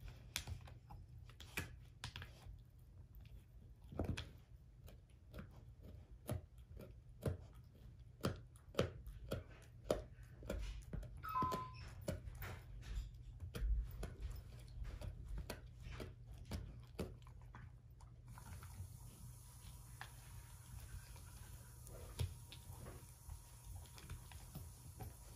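German shorthaired pointer chewing an air-dried whole pig foot: irregular sharp crunches of bone and dried skin, coming thickest through the middle and thinning out near the end.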